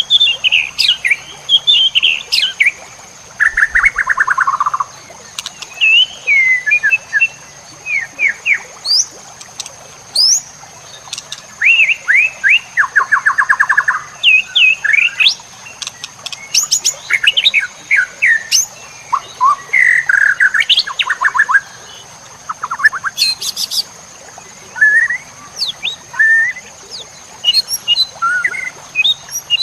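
White-rumped shama singing a varied, loaded song: short whistled sweeps, fast rattling trills and bursts of quick notes one after another with brief gaps. A thin steady high tone runs underneath.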